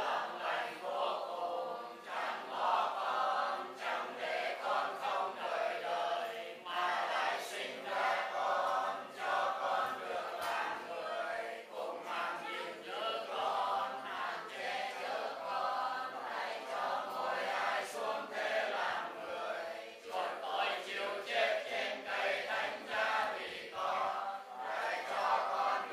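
A congregation's voices chanting prayers together in unison, the sung style of Vietnamese Catholic communal prayer.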